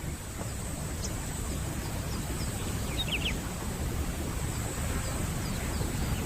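Wild outdoor ambience: a steady low rumble with faint, short bird chirps scattered through it, and a quick run of chirps about three seconds in.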